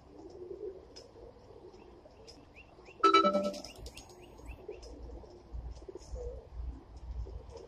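Domestic pigeons cooing at the loft, with scattered short high chirps from small birds. About three seconds in, a sudden loud knock rings briefly.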